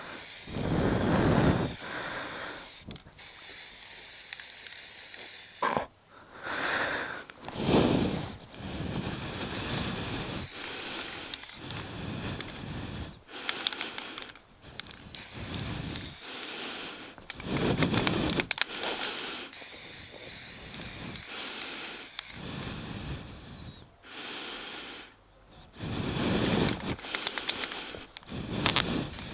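Aerosol can of matte black spray paint hissing in repeated bursts, one for each pass over motorcycle body panels, with short pauses between passes.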